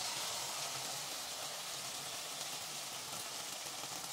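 Sliced onions and bolognese sauce sizzling in hot oil in a frying pan as they are sautéed, a steady hiss.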